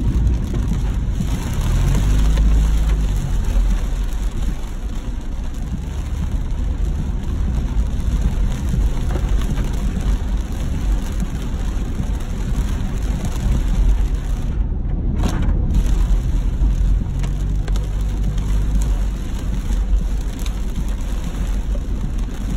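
Heavy rain drumming on a car's roof and windshield, heard from inside the cabin, over a deep low rumble that swells and fades a couple of times. The sound briefly turns muffled about fifteen seconds in.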